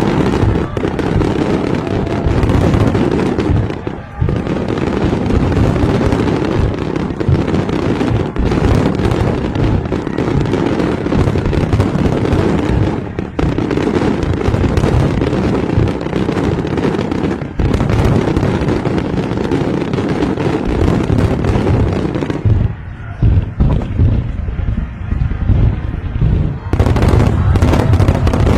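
Fireworks display: a dense, unbroken barrage of booming bursts and crackling, easing for a few seconds near the end and then turning heavy again.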